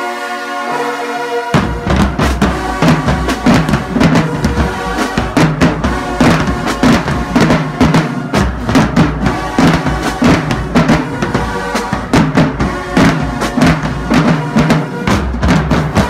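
Marching band drumline playing a fast, loud cadence: bass drums, snare drums and crash cymbals. The drums come in about one and a half seconds in, cutting off a held brass chord.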